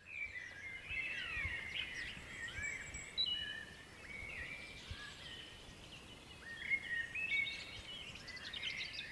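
Several songbirds singing at once: overlapping quick chirps, whistles and short falling trills.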